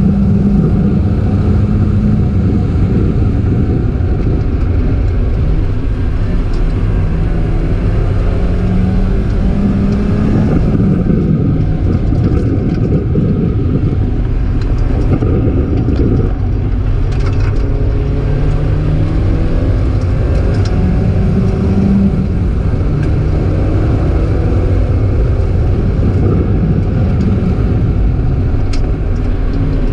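Mazda Miata four-cylinder engine at full throttle on a racetrack. It revs up repeatedly, and the pitch drops at each gear change, over steady road and tyre noise.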